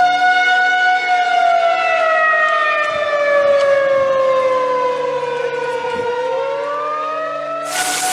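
Outdoor civil-defense warning siren wailing: one loud tone that slowly falls in pitch for about six seconds, then rises again. Near the end a loud burst of hiss comes in over it.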